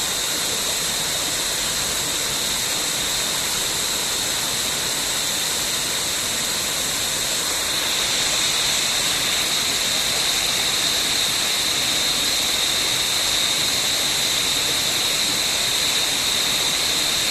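Jungle waterfall, a steady rush of falling water, with a steady high-pitched hum over it; it gets a little louder about halfway through.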